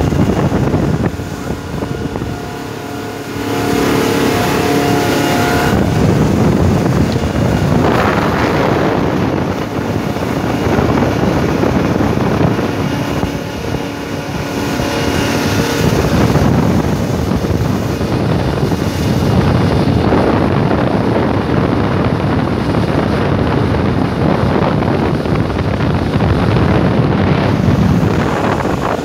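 Motorboat under way at speed, its engine drone mixed with wind buffeting the microphone in slow surges.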